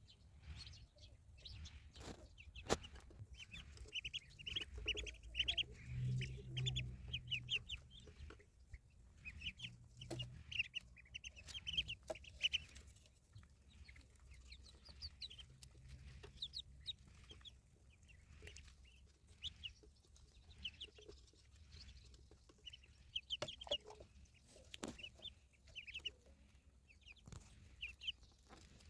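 Ducklings peeping: runs of short, high chirps, coming and going throughout, with a few sharp knocks.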